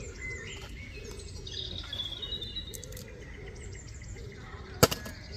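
Birds chirping in the background; near the end, one sharp knock with a brief clatter as a flipped plastic water bottle lands on a concrete ledge.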